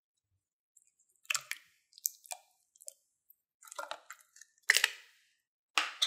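Slime and round plastic slime tubs being handled in a glass bowl: a string of short, crisp crackles and clicks with quiet gaps between them, the loudest about five seconds in and again at the end.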